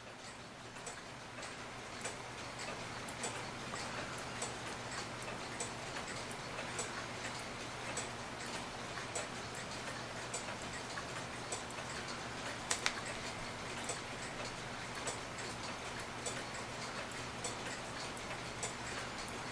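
Mechanical clock ticking steadily, with a sharper double click about two-thirds of the way through, over a faint steady hum.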